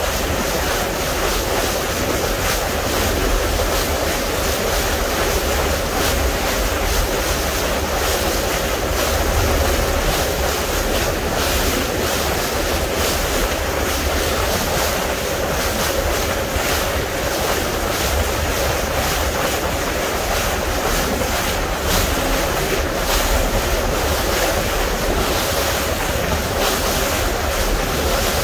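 Wind buffeting the microphone and sea water rushing past a moving boat, with a faint steady hum from the boat.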